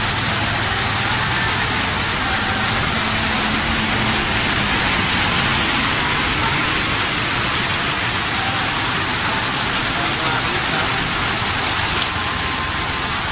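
Heavy rain pouring steadily onto a wet paved road, an even hiss.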